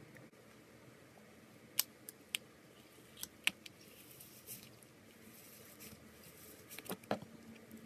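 Scissors cutting into a slime-filled stress ball: a scattering of short, crisp snips and clicks, with a quick cluster of them near the end.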